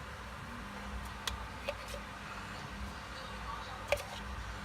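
Quiet room tone with a steady low hum and a few faint taps.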